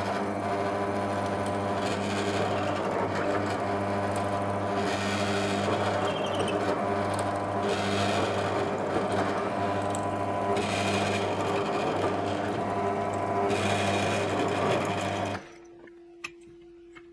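Drill press with a hollow chisel mortiser attachment cutting a square mortise in timber: a steady motor hum, with a burst of cutting noise every two to three seconds as the auger bit and square chisel plunge into the wood. It cuts off suddenly near the end, leaving a faint steady hum.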